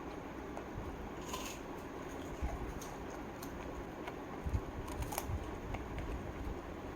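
A dachshund chewing crunchy fasting chips: a handful of sharp, scattered crunches over steady background noise, the loudest about five seconds in.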